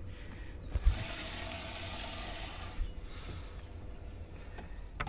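A knock about a second in, then about two seconds of water splashing and pouring in a bass boat's live well as the fish is taken out, then fainter water sounds.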